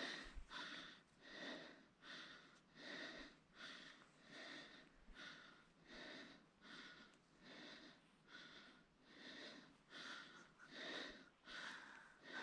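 Faint, fast heavy breathing, short rhythmic breaths about one a second, from someone labouring through deep snow.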